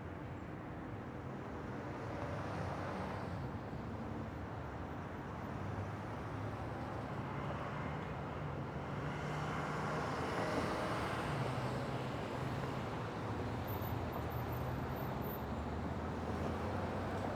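Gas station forecourt ambience: vehicle engines running with a steady low hum and passing traffic, the sound swelling twice, briefly a few seconds in and more strongly around the middle.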